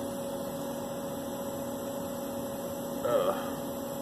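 Steady electrical hum with a constant mid-pitched tone, and one brief voice-like sound about three seconds in.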